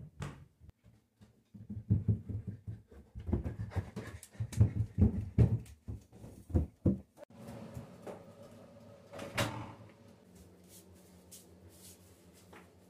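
Irregular low thuds and bumps of footsteps climbing a carpeted staircase. Then a quieter steady hum, with one sharp knock about two-thirds of the way through.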